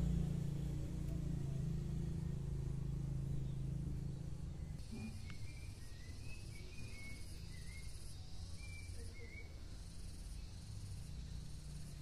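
Outdoor background: a vehicle's low rumble fades out about five seconds in, after which insects buzz steadily and a run of short, high chirps sounds for a few seconds.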